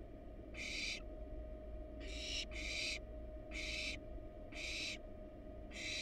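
Barn owl nestling's begging calls: rasping, hiss-like screeches about half a second each, repeated roughly once a second, six in all. A faint steady hum runs underneath.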